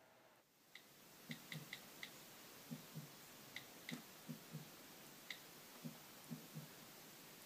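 Faint, irregular ticks and soft taps over near silence: an iPhone time picker clicking as the alarm time is dialed in.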